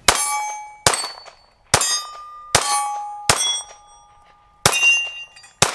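Seven 9mm pistol shots from a Glock 45 MOS, roughly one a second with a slightly longer pause before the sixth, most followed by the ring of a steel target being hit.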